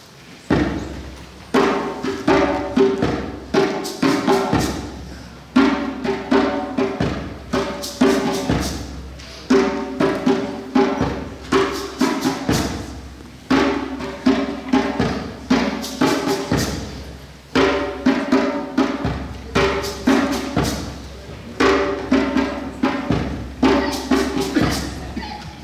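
Frame drum played by hand in a steady rhythm, a phrase of several strokes repeating about every four seconds.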